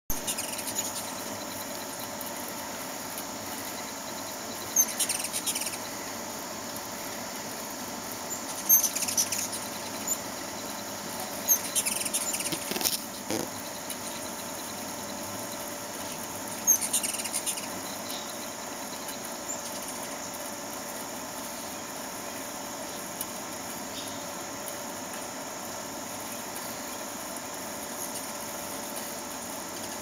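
Hummingbird giving short, high, squeaky chip calls in four clusters, over a steady background hum.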